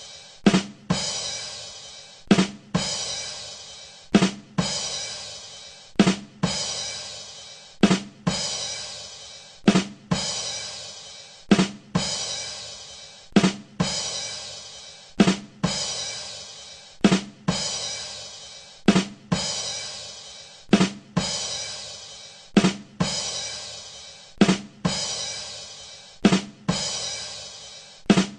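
'Ba dum tss' rimshot sting on a drum kit, looped over and over: two quick drum hits followed by a cymbal that rings out and fades, repeating about every two seconds.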